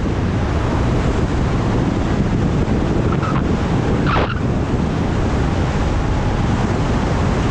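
Steady wind rushing over the microphone of a skydiver's head-mounted camera during descent under an open parachute, with one brief sharper gust about four seconds in.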